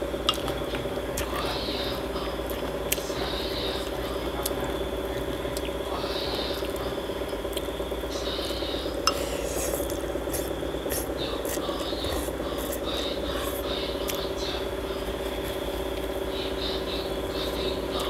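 Close-miked eating of noodle soup: slurping and chewing, with a few sharp clicks of a spoon or chopsticks against a glass bowl, the loudest near the start and about halfway through, over a steady background hum.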